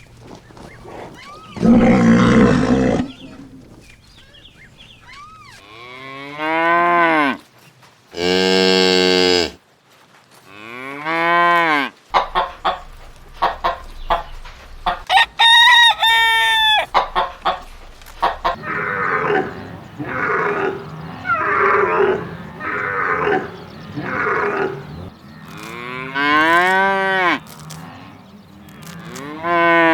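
A series of separate farm-animal calls with short gaps between them: a rooster crowing and chickens clucking, and cattle mooing.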